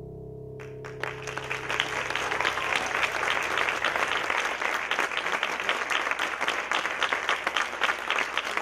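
Audience applauding, starting about a second in, while the last held chord of the music fades out underneath.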